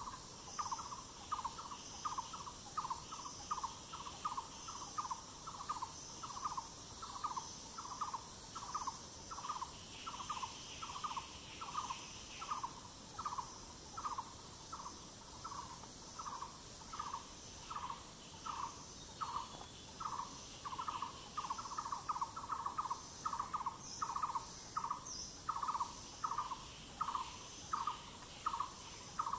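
A forest bird repeating a short, even note about twice a second without a break, over a steady high-pitched insect drone.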